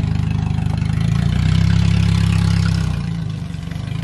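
Pickup truck engine idling with a steady, fast-pulsing low note that dips briefly about three seconds in.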